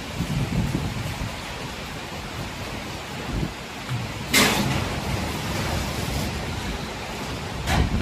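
Storm wind buffeting the microphone over a steady rain hiss, with a sudden loud burst of noise about four seconds in and a shorter one near the end.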